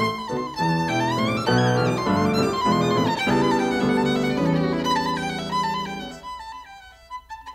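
Violin playing a fast, lively passage of classical music, which settles into a held chord about six seconds in and then goes on more quietly in short, detached notes.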